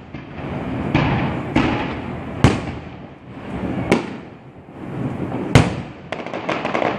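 Aerial firework shells bursting overhead: a series of booms, with two sharp bangs about two and a half and five and a half seconds in, and a rapid run of sharp cracks near the end.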